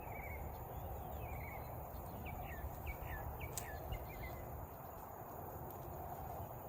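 A small bird calling a quick series of short, downward-sliding chirps during the first four seconds, over a steady background hiss with a low rumble. A single sharp click about three and a half seconds in.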